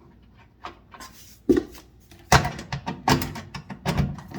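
Clicks and knocks of a hand tool and metal parts being handled while a replacement dryer thermal fuse is screwed into place. There is a dull thump about one and a half seconds in, then a quicker run of sharper clicks in the second half.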